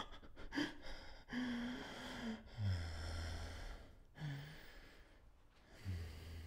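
Heavy, breathy exhalations and gasps, typical of a horror film's sound design. Twice, a low tone slides down in pitch and then holds: once about two and a half seconds in, and again near the end.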